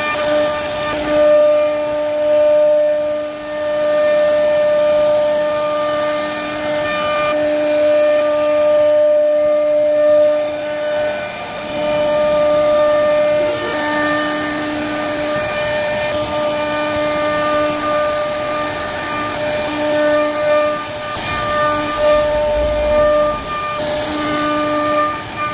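CNC wood-carving router's spindle running with a steady high whine as the bit cuts relief patterns into a wooden panel, over a hiss of cutting noise. One part of the whine drops in and out every second or two as the cutting load changes.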